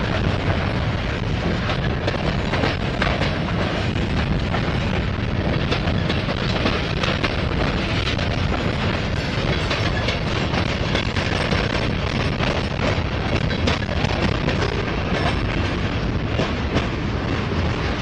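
Freight train of covered hopper cars rolling past close by: a steady rumble of steel wheels on rail, with scattered light clicks as the wheels cross rail joints.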